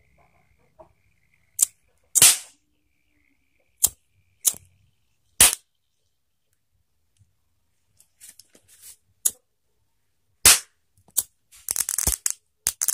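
Bubbles of oxyhydrogen (HHO) gas from an electrolysis generator are lit with a lighter, each going off with a sharp, loud pop like a cap gun. There are seven separate bangs over the first ten seconds or so, then a fast run of crackling pops near the end.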